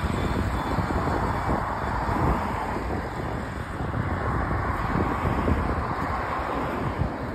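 LiAZ-5292.65-03 city bus pulling in and slowing to a stop at the kerb, its engine and tyre noise coming up close, with wind buffeting the microphone.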